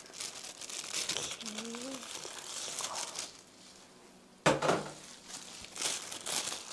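Disposable plastic glove crinkling and rustling as a gloved hand works over freshly grated cucumber, with a single sharp knock about four and a half seconds in.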